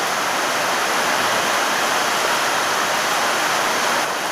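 Heavy storm rain pouring down in a steady, even rush.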